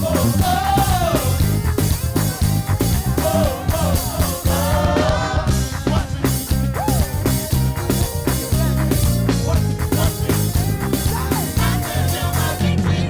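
Live church praise band playing an upbeat, fast-moving arrangement, with bass guitar, drum kit and vocal or lead lines.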